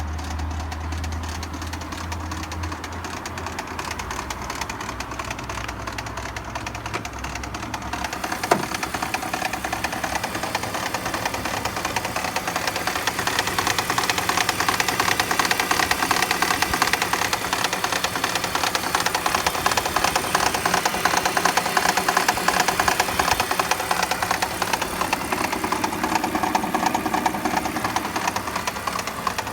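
BMW E46 engine idling with a loud, rapid knocking. A single sharp knock stands out about eight and a half seconds in, and the knocking grows louder from about thirteen seconds in.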